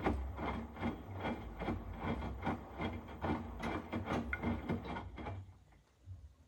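Hotpoint WMFUG942 washing machine running: a low hum with a repeating knock about two to three times a second that fades out about five seconds in.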